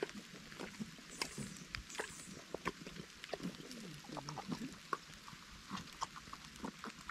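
A donkey chewing and biting into watermelon: irregular crunching and clicking, several small crunches each second.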